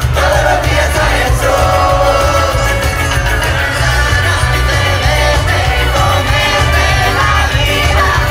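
Loud amplified music through a PA, with a heavy, steady bass beat and a singing voice over it.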